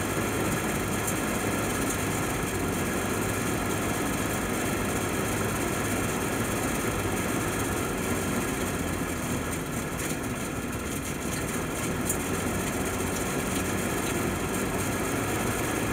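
M29C Weasel's Studebaker Champion six-cylinder flathead engine idling steadily on choke just after a cold start, warming up until it can idle on its own. It runs smoothly.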